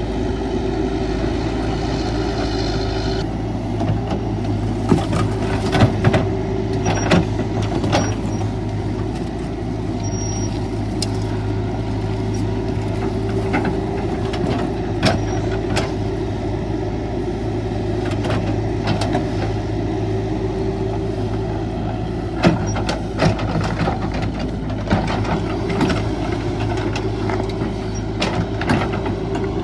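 Caterpillar 312 hydraulic excavator's diesel engine running steadily while digging, with sharp knocks and clanks from the working bucket scattered through, in clusters a few seconds in and again near the end.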